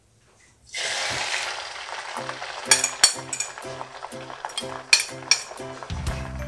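Beaten egg poured into a very hot, oiled frying pan, sizzling loudly the instant it hits the oil about a second in and sizzling steadily on; the pan is heated well first so the omelette puffs up.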